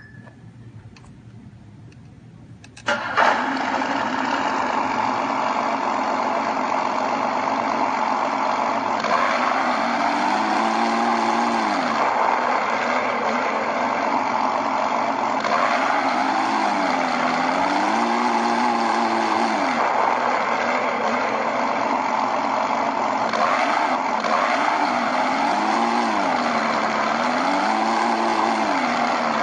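Miniature RC sound module (SC0002) playing a simulated engine through its small speaker: the engine starts about three seconds in and settles to a steady idle, then revs up and back down several times as the throttle is touched.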